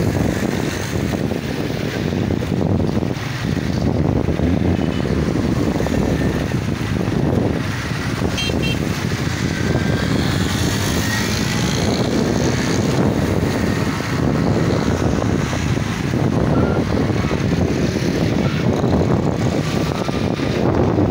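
A small motorcycle riding along at steady speed, its engine and road noise mixed with wind rushing over the microphone in a continuous low rumble.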